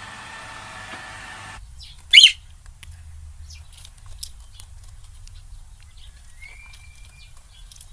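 A sudden, very short, high-pitched squawk about two seconds in, then faint scattered clicks and a brief high chirp near the end.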